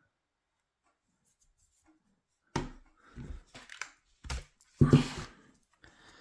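A few sharp rustles and knocks of handling, starting about two and a half seconds in and loudest about five seconds in, as a rubber protector boot is worked over the body of a cordless impact wrench.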